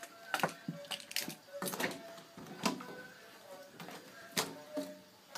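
A series of sharp, irregular clicks and knocks, with faint music and indistinct voices underneath.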